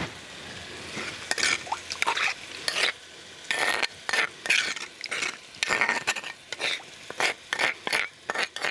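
Metal spoon scraping and stirring around the inside of a stone molcajete, swirling a little water to rinse out the last of the ground chile sauce: a run of irregular scrapes and clinks.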